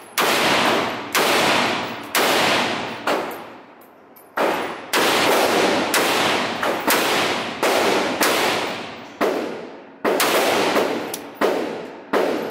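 Rifle fired shot after shot at a steady, unhurried pace of roughly one shot a second, about a dozen in all. Each shot cracks sharply and rings out in the long echo of an indoor range.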